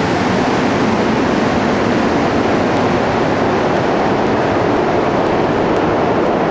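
Steady rushing rumble of a rubber-tyred Montreal metro train pulling away into the tunnel, echoing through the underground station.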